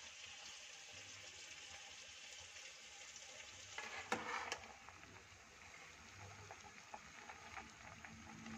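Silkworm larvae cooking in bubbling liquid in an aluminium pot: a faint, steady sizzle with scattered small crackles, and a short burst of louder crackles about four seconds in.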